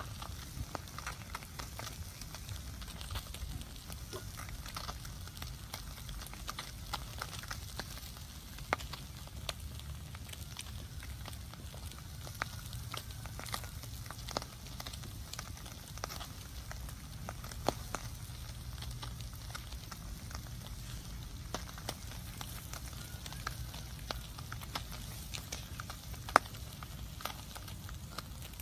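Small wood fire with fish roasting on it, crackling with irregular sharp pops, one louder pop near the end, over a steady low rumble.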